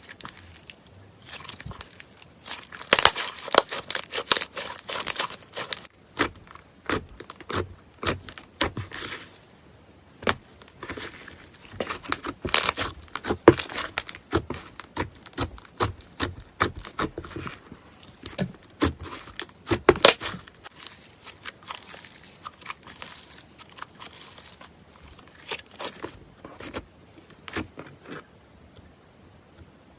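Slime being squeezed, stretched and kneaded by hand, giving quick irregular crackling pops and sticky tearing sounds that die away near the end.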